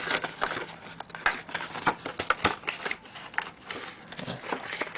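Plastic blister packaging and its cardboard backing being handled and pulled apart: irregular crinkling and crackling with many small clicks.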